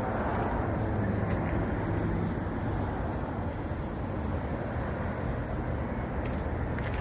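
A steady low rumble of vehicle noise with a faint hum, unchanging throughout.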